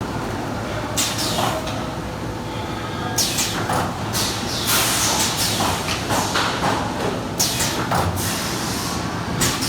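Lollipop packaging and sealing machine running: a steady mechanical din with a faint hum, broken by short swishing sweeps that fall in pitch, about ten of them at uneven spacing.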